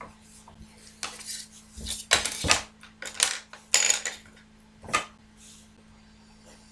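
A wooden ruler and a plastic set square being slid and set down on paper: about five short scraping, clattering knocks, the loudest a couple of seconds in.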